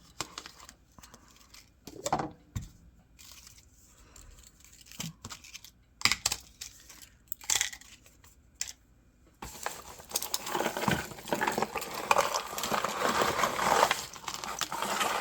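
Jewelry and its packaging being handled and sorted: scattered clicks, clinks and crinkles, turning into continuous rustling and rattling about nine and a half seconds in.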